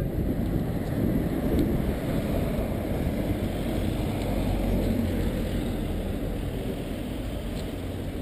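Wind buffeting a camera microphone outdoors: a steady, fluctuating low rumble, with faint street noise beneath.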